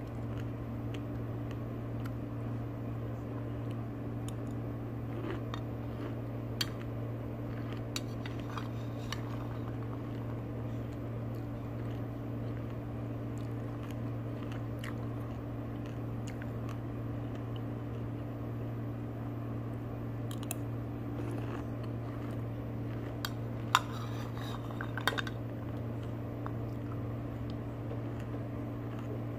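Pomegranate seeds being eaten: a metal spoon clicks against the bowl now and then, with soft crunchy chewing in between. The two sharpest clicks come a little past the middle, over a steady low hum.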